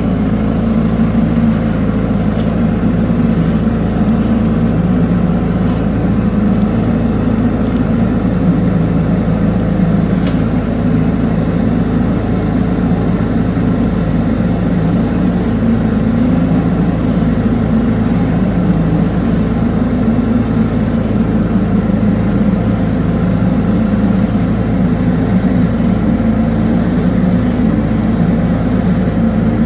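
Engine-driven high-pressure drain-jetting machine running steadily at a constant drone while it blasts grease out of a drain pipe.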